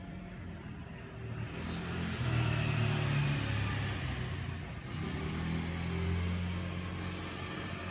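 A motor vehicle's engine running with a steady low hum, growing louder about two seconds in, easing around five seconds and swelling again about six seconds in.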